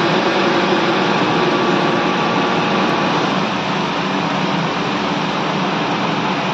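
A 15-ton vertical insert plastic moulding machine running with a loud, steady mechanical noise, easing slightly about halfway through.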